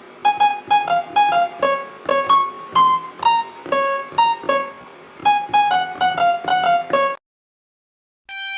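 Music: a simple melody of single struck keyboard notes, stopping about seven seconds in; after a second's silence a different piece of music starts at the very end.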